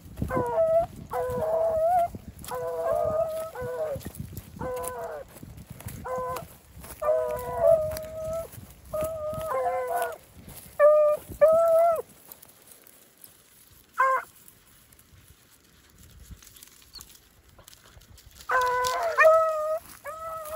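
Beagle rabbit hounds baying, a quick series of short, pitched calls for about twelve seconds, one more a couple of seconds later, then calling again near the end: hounds giving mouth while working a rabbit's scent.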